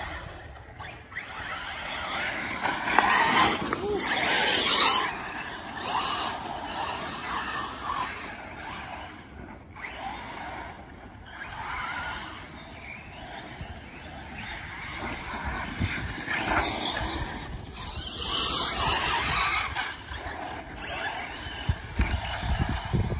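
Radio-controlled off-road buggies running laps on a dirt track, their motors and tyres on the dirt growing louder and fading again every few seconds as they pass.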